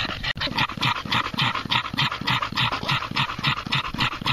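Springer spaniel panting hard and fast, an even rhythm of about five breaths a second.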